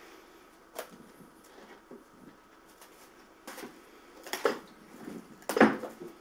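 Plastic cling film from a Wafa box being pulled off and handled over a glass bowl: a few short crackling rustles, the loudest near the end.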